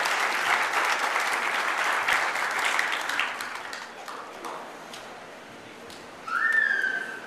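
Audience applauding, the clapping fading out over about four seconds. Near the end, one short high-pitched call rises and then holds.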